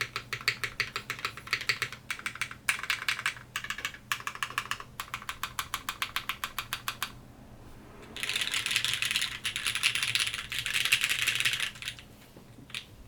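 Mechanical keyboard typing on a Velvet Pro with lubed, broken-in Cherry MX Black linear switches in a full aluminium plate. Steady typing with short pauses, a brief break about seven seconds in, then a dense, louder flurry of fast keystrokes for about four seconds, thinning to a few scattered key presses near the end.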